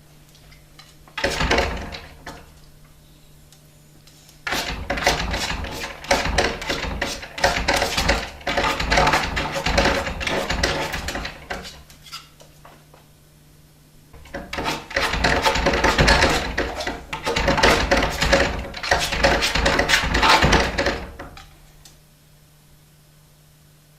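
A dog scratching at a door with its claws, in rapid strokes: one short bout, then two long bouts with a pause between them. This is a dog asking to be let out.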